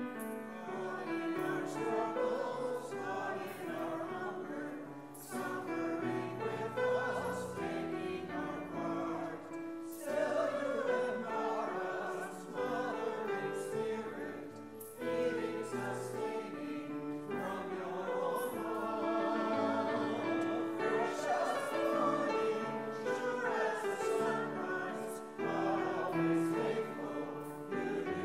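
Congregation singing a hymn verse in unison, line by line with short breaks between phrases, over a keyboard accompaniment.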